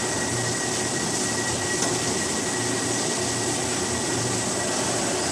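CNC vertical machining center (L.K. MVD-1050) running: a steady mechanical hiss with thin, high-pitched whines held at constant pitch.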